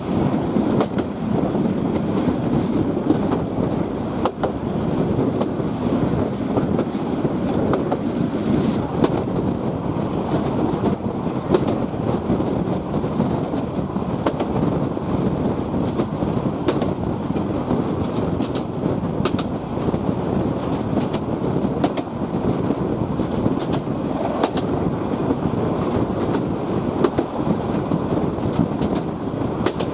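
Bangladesh Railway train running on the track: a steady rumble of wheels and rails, broken by frequent short sharp clicks and rattles.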